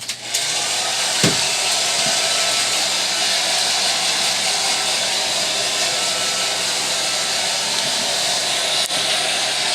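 Handheld hair dryer switched on at the start and blowing steadily: an even hiss over a faint low hum, with one short knock about a second in.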